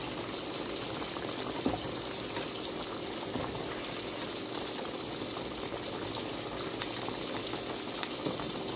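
Fried catfish simmering in brown gravy in a skillet: a steady bubbling hiss with small scattered pops.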